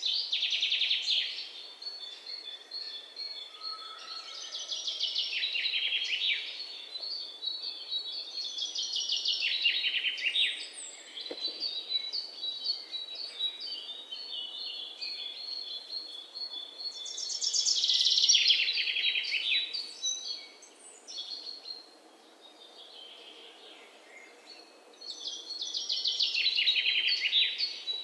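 Songbirds singing: one bird repeats a loud song of rapid notes that falls in pitch, five times, over another bird's steady run of short, high chirps.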